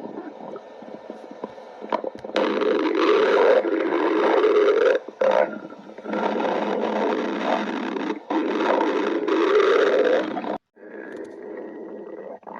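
A person's stomach growling in long, loud gurgling rumbles: softer gurgles at first, then a sustained growl starting about two seconds in, a brief dip, and a second long growl that cuts off suddenly near the end.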